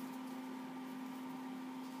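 Steady low hum at one pitch over a soft even hiss: background room tone, with no distinct handling sounds.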